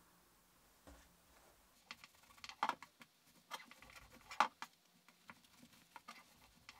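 Handling a fleece tote bag and pressing its lining with a small handheld iron: scattered soft taps, rustles and clicks of fabric and the iron on the table, loudest about two and a half and four and a half seconds in.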